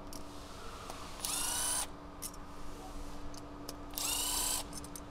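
Cordless electric ratchet run twice, about half a second each and about three seconds apart, spinning out the two 10 mm fuel-rail bolts, its motor whine rising as it spins up. A faint steady hum runs underneath.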